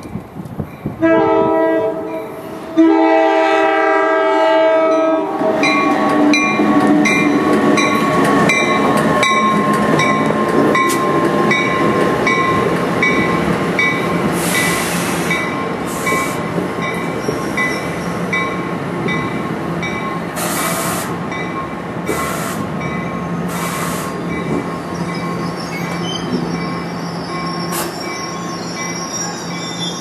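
A passenger train's multi-chime air horn sounds two blasts, then a New Jersey Transit Multilevel passenger train rolls past. Its wheels click over the rail joints about twice a second and squeal, with a steady low hum underneath.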